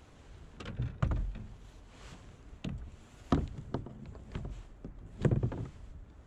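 Several knocks and clunks of fishing gear handled in a kayak, the loudest about a second in and near five seconds in.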